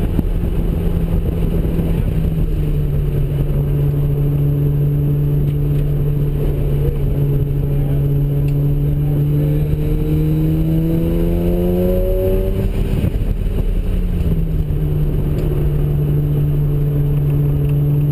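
Mazda RX-7's ported 13B-REW twin-rotor rotary engine with BNR stage 3 turbos, running at low boost under hard track driving. The engine note climbs under load, breaks off about thirteen seconds in, then picks up again and climbs.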